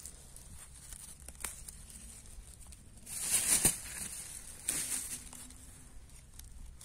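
Wild greens being picked by hand: leaves rustle and stems tear in two short bursts, the louder about three seconds in and a smaller one near five seconds.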